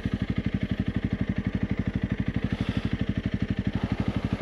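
Honda CRF 300 Rally's single-cylinder four-stroke engine idling steadily, an even beat of about twelve pulses a second.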